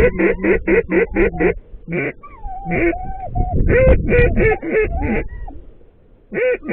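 Mallard-style quacking: a fast, even series of calls, about four a second, for the first second and a half, then scattered shorter calls and sliding notes, and another short run of calls near the end.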